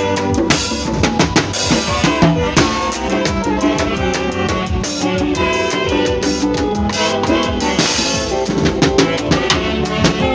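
A live band playing bango music: a drum kit keeps a busy beat of snare, bass drum and cymbal strokes under saxophone and electronic keyboard lines.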